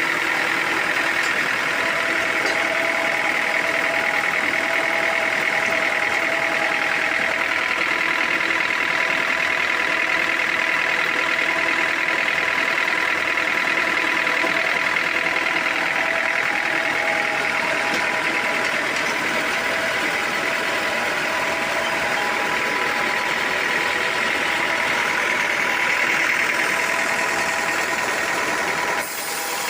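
Sawmill machinery running steadily with a constant whine. The sound changes abruptly about a second before the end.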